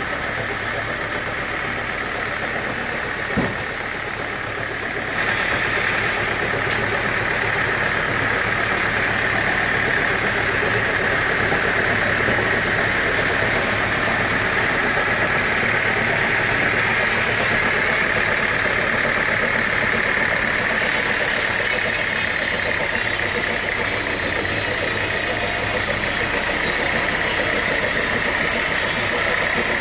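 Sawmill machinery running steadily with an engine hum and a higher whine, stepping up in loudness about five seconds in; a single sharp knock a few seconds in.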